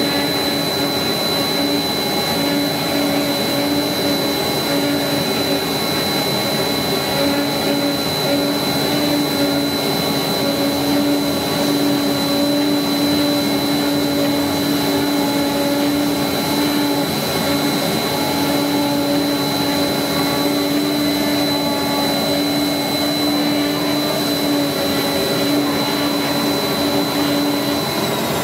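CNC oscillating knife cutter running as it cuts cardboard: a steady, vacuum-like machine drone with a constant high whine and a lower buzzing hum that drops out briefly a few times. The hum and whine stop near the end.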